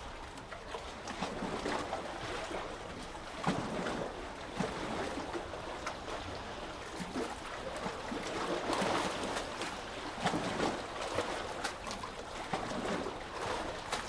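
Sea water moving against the shore, with many small irregular splashes over a steady wash.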